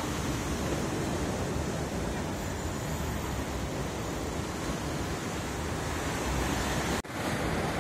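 Surf breaking and washing up a sandy beach, with wind rushing on the microphone. The sound drops out for an instant near the end.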